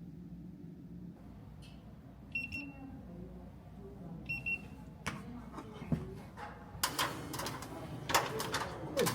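Two short electronic beeps about two seconds apart, then irregular clicking, knocking and rattling from something being handled.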